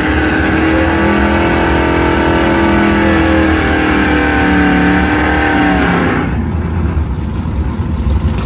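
Drag car engine held at high revs, a steady pitched drone with the rear tyres spinning in a burnout; about six seconds in the revs cut off suddenly and the engine drops to a low, lumpy rumble.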